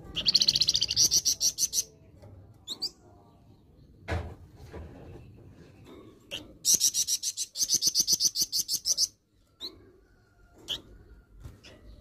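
Caged songbird of the kind sold in Indonesia as 'flamboyan', calling with a harsh voice: a fast run of repeated high notes at the start and another about seven seconds in, with single short calls between.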